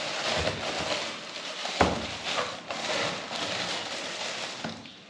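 Tissue paper rustling and crinkling as a sneaker is lifted out of its cardboard shoebox, with one sharp knock a little under two seconds in.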